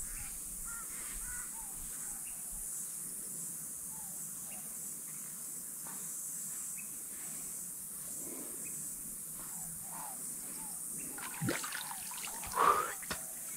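Outdoor natural ambience: faint short bird chirps over a steady high hiss, with a few louder sudden calls or sounds near the end.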